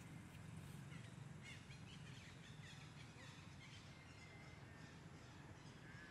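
Near silence: faint outdoor ambience with a steady low hum and a few faint, short, high chirps during the first half.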